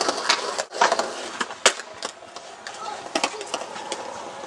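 Skateboard wheels rolling on a concrete quarter pipe and flat ground, with several sharp clacks of the board and trucks striking the concrete and the ramp's edge.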